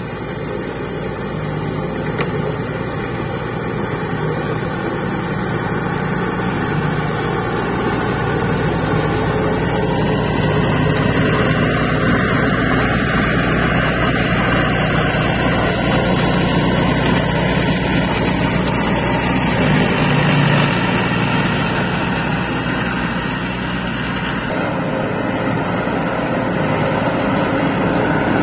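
Scag Turf Tiger zero-turn mower's Caterpillar diesel engine running steadily under load while mowing tall grass, getting louder as the mower comes closer.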